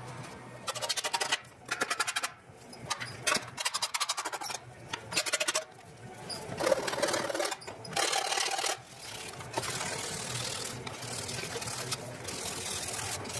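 Flat hand file drawn across the freshly cut edge of an aluminium engine cooling baffle in about seven separate strokes, smoothing and deburring the cut. After that, abrasive paper rubbed steadily along the metal edge.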